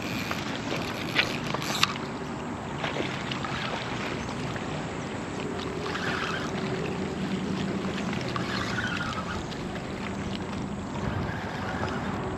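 Steady wind and rippling river water, with a faint low hum and two sharp clicks about one and two seconds in.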